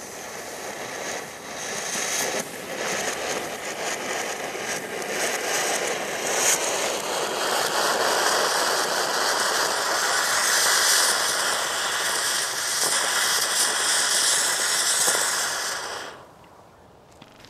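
Small ground fountain firework burning with a steady spraying hiss and scattered sharp clicks. It grows louder about seven seconds in and cuts off suddenly near the end as the fountain burns out.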